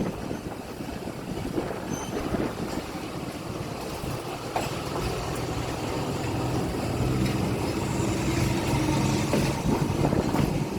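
Train running along the rails, heard from aboard: a steady rumble of wheels and carriage that grows slowly louder, with a low steady hum joining in about halfway through.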